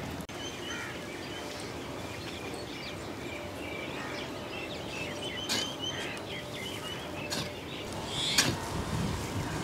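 Many short bird calls over steady outdoor background noise, with a few sharp scraping strikes of a hoe blade into loose red soil in the second half, the loudest near the end.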